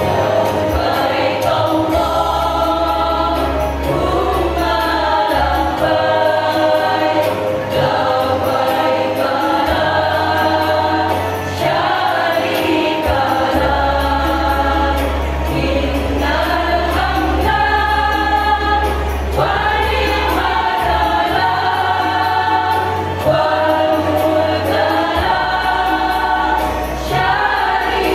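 Women's choir singing in unison and parts, one sung phrase flowing into the next without a break.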